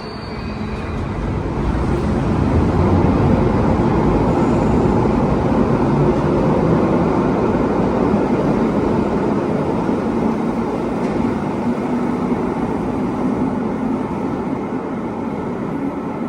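London Underground 1972 Stock train pulling out of a station: a rumbling drone of motors and wheels that builds over the first few seconds as it gathers speed, then holds steady and eases slightly near the end.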